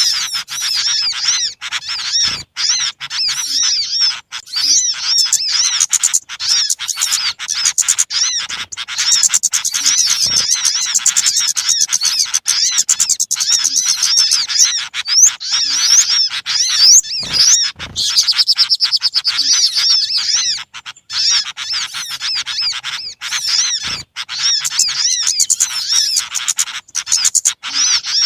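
Dense chorus of many small birds chattering and twittering, high-pitched calls overlapping without a break. It is a bird-lure recording made to draw in small birds.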